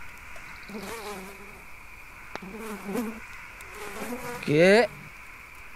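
An insect buzzing in short wavering bursts over a steady high hum, with one louder rising buzz about four and a half seconds in.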